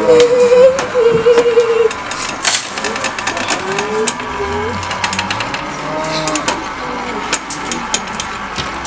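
Mourners wailing in grief: long drawn-out moaning cries, one held for about two seconds at the start and others rising and falling, with scattered sharp clicks and taps.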